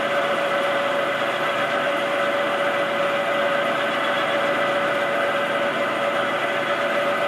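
Electric power tool running steadily: a constant whine over an even, rough noise, used to clean up the puller rod.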